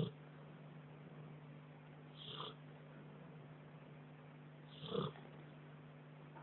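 English Setter snoring in her sleep: short snores about every two and a half seconds, three in all, over a faint steady hum.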